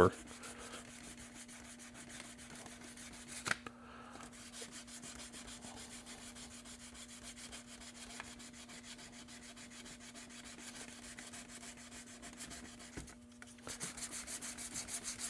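Sandpaper rubbed by hand over glazing putty and filler on a hard plastic RC truck body, faint scratching strokes. Near the end the strokes turn louder and quicker, about five a second.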